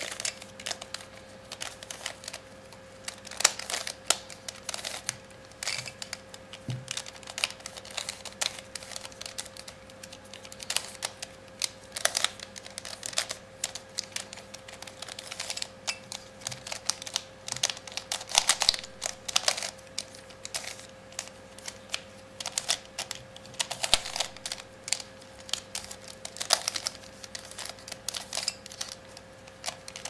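A plastic 3x3x3 mirror cube (an irregular shape-shifting Rubik's-type cube) being turned by hand during a solve: quick, irregular clusters of clicks and clacks as its layers snap round.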